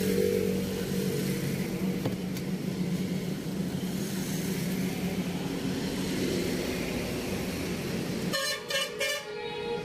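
Road traffic: a vehicle engine hums steadily, then a horn sounds from about eight seconds in.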